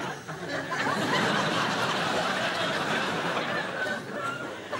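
Studio audience laughing and chuckling.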